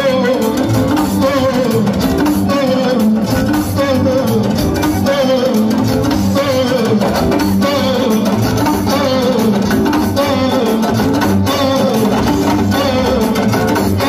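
Live band music: a repeating guitar figure over bass and drums, with a voice singing, playing loud and continuous.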